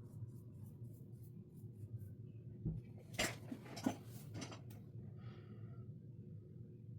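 Paintbrush working acrylic paint on a canvas, with soft scratchy strokes and a few light clicks and knocks near the middle, over a faint steady hum.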